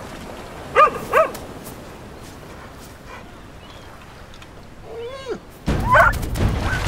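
A dog barks twice in quick succession about a second in, then gives a longer whining yelp near the end. A loud, noisy rush of sound starts under the yelp.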